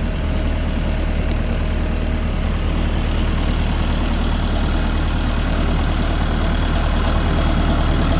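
Engine of a slow-moving vehicle running steadily at low revs, heard from on board as a constant low hum.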